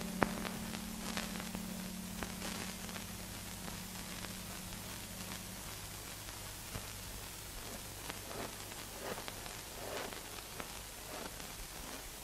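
Faint steady hiss and crackle of an old film soundtrack, with a held low music note fading out about halfway through and a few soft clicks scattered through.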